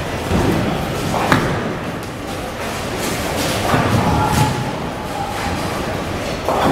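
Bowling alley sounds: a bowling ball thuds onto the lane just over a second in and rolls toward a single standing pin, with knocks and rumbling around four seconds in as it reaches the pin deck. The pinsetter's sweep comes down with a knock near the end.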